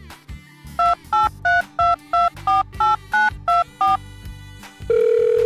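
Telephone keypad dialing tones: ten quick two-tone beeps, one per press. About five seconds in, a steady phone line tone begins.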